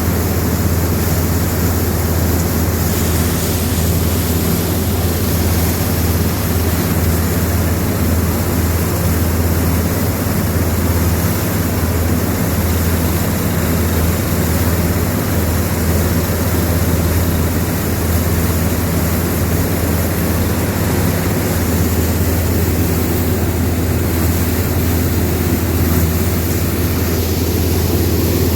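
A combine harvester running steadily at working speed: a constant low engine hum under a dense mechanical rush that does not change.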